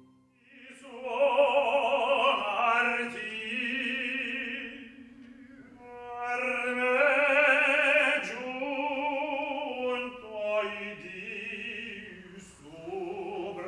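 A male opera voice singing long, sustained notes with wide vibrato, in several phrases with short breaks between them.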